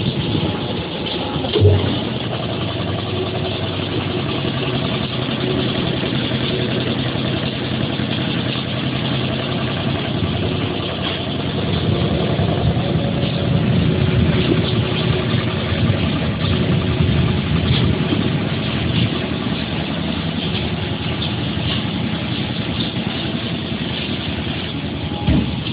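Machinery running with a steady engine-like drone, a little louder midway, with a short knock about two seconds in and another near the end.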